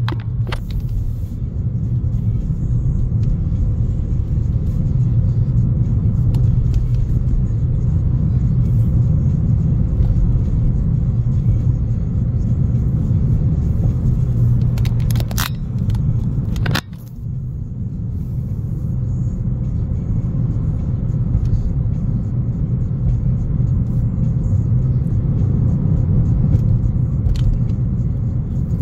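A car driving, with a steady low rumble of engine and road noise. A few sharp clicks come about fifteen seconds in, and the rumble drops suddenly and briefly just before seventeen seconds, then builds back up.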